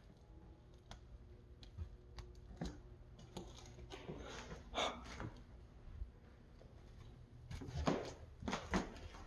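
Footsteps, scuffs and small knocks of people moving about a small room with a littered floor, with rustling; the sounds come sparsely at first and bunch together near the end.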